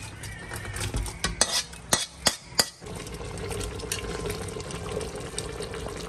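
A slotted metal spatula scrapes and clanks against a wok as chicken curry is scooped into an aluminium pot. About three seconds in, this gives way to a metal spoon stirring the curry in the pot while it simmers with a steady sizzle.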